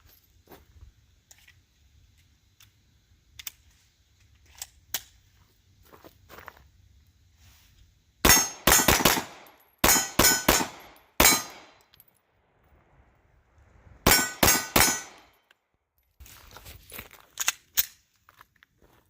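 Glock 17 Gen 4 9mm pistol firing 115-grain full metal jacket rounds in quick strings of shots starting about eight seconds in: a rapid string of about four, then several more in close succession, then another string of three or four. Fainter sharp reports follow near the end, and faint clicks come before the firing.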